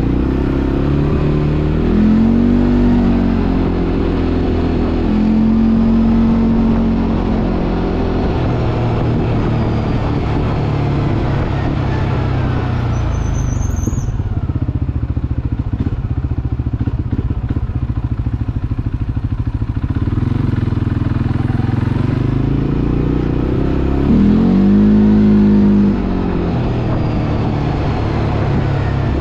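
CFMoto 450 ATV's single-cylinder engine pulling along at low speed in traffic. It rises and falls in pitch with three throttle pulls, about two seconds in, around five to seven seconds, and again near the end. Between them it settles to a steady low running, with a brief high squeak about halfway.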